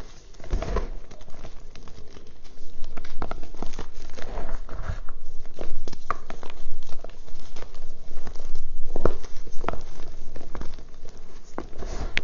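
Reformed gym chalk being squeezed and crumbled by hand: dense crunching and crackling as the pressed blocks break down into powder, with sharper cracks every few seconds.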